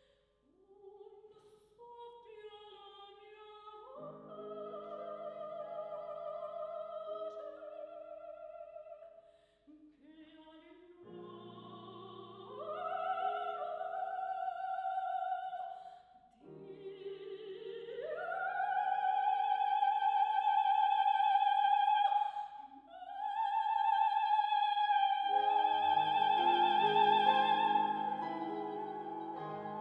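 Soprano singing an operatic aria with grand piano accompaniment. The phrases each climb in pitch with vibrato, separated by short breaths, and build to long held high notes in the second half over sustained piano chords.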